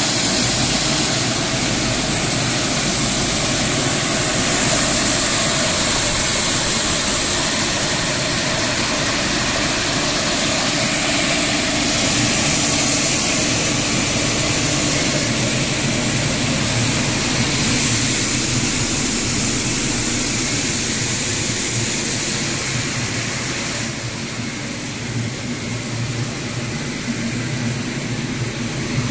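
PVC plastic pulverizer line running steadily: the mill, its air conveying and the vibrating sieve make a loud, continuous rushing hiss over a steady low hum. The level drops a little about three-quarters of the way through.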